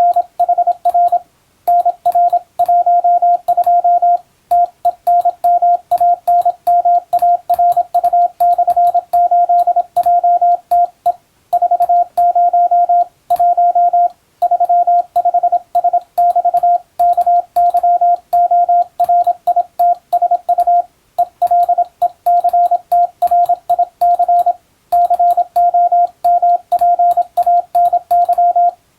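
Morse code (CW) sent as a single steady beep keyed on and off in quick dots and dashes, in runs broken by short pauses every few seconds.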